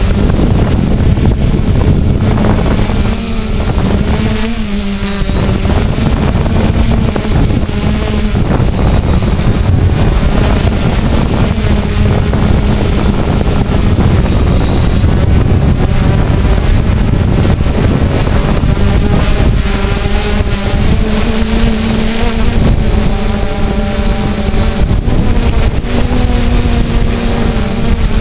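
Quadcopter drone's electric motors and propellers running in flight, heard close up through the drone's own onboard camera: a steady hum whose pitch wavers up and down as it manoeuvres.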